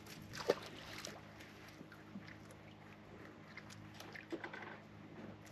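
Faint sounds of a small boat on calm water: light water lapping and scattered small knocks and ticks against the hull, the sharpest about half a second in, over a faint steady low hum.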